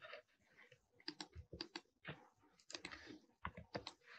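Faint computer keyboard typing and clicking: a scatter of irregular single keystrokes.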